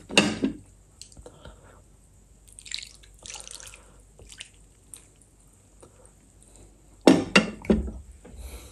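Gravy pouring from a glass bowl and dripping onto a plate of saucy chicken feet, with small wet handling noises. There is a sharp knock just after the start and a cluster of louder knocks against the plate near the end.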